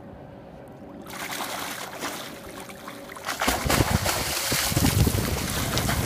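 Water splashing as a swimmer kicks hard at the surface, growing louder and rougher from about three seconds in, with wind buffeting the microphone.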